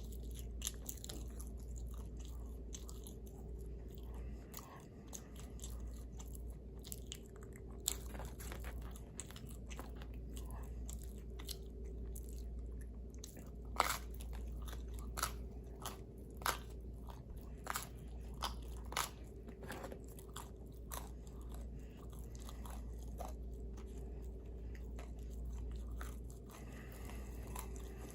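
A person chewing and biting pizza close to the microphone: wet mouth clicks and crunches, with a run of sharper crunches through the middle, over a steady low hum.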